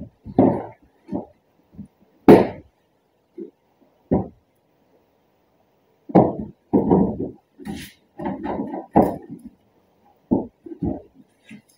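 Irregular knocks, clunks and rattles as a replacement headlight assembly and its wiring are handled and fitted into a pickup truck's headlight opening. They come in scattered bursts, busiest from about six seconds in.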